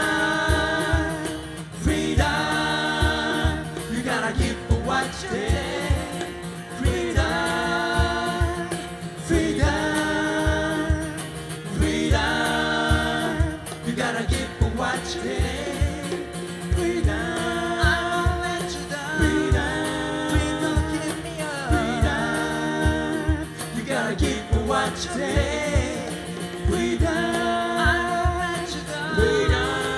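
Live male vocal group singing in harmony with acoustic guitar and percussion backing, in long held sung phrases.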